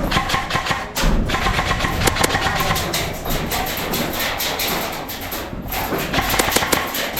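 Airsoft rifles firing during a skirmish: a dense, irregular run of sharp snaps and clicks.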